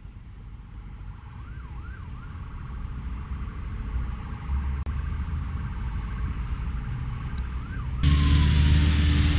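Distant emergency sirens wailing, faint rising and falling glides, over a low rumble. About eight seconds in, a louder steady low hum comes in.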